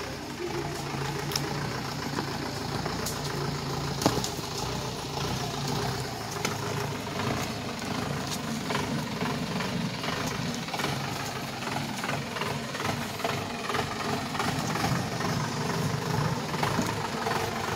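A Mahindra jeep's engine running steadily at low revs as the jeep crawls up a rocky track, with scattered sharp clicks and knocks from stones under the tyres.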